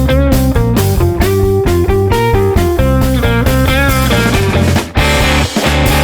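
Rock music with electric guitar playing fast single notes with bends over bass and drums, turning to a denser distorted strum about five seconds in.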